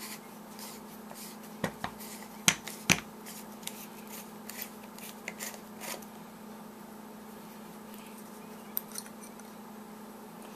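Hands unscrewing the head of an aluminium Mag-Lite D-cell flashlight: scattered clicks and light scrapes from the threads and grip, with a few sharper clicks about two seconds in and two more near the end.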